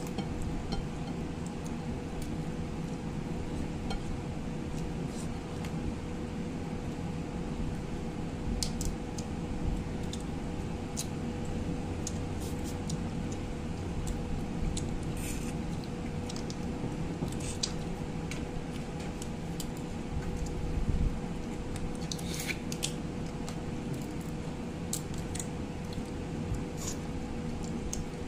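Crab being eaten by hand: scattered sharp clicks and cracks as the shell and legs are broken and picked apart, over a steady background hum. A dull bump about three-quarters of the way through is the loudest sound.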